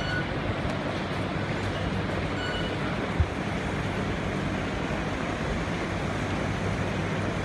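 Steady noise of a subway station concourse: ceiling ventilation fans and a low rumbling hum, with a single brief thump about three seconds in.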